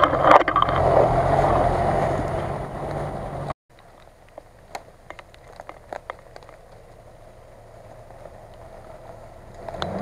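Nissan Patrol SUV's engine running under load as it drives past close by, cutting off abruptly a third of the way in. A quiet stretch follows, with scattered small clicks and a faint distant engine that grows louder near the end as a Nissan Navara pickup approaches.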